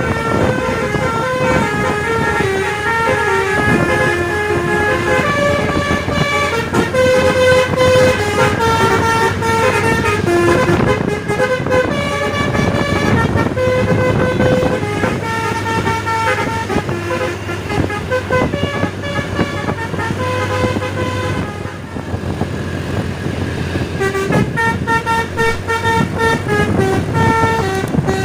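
Tour bus's basuri telolet multi-tone horn playing a tune of shifting notes over the bus's running engine.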